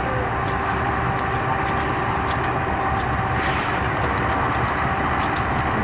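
GE CM20EMP (CC206) diesel-electric locomotive running steadily as it slowly shunts a passenger train, a constant rumble with a steady hum, with scattered light clicks over it.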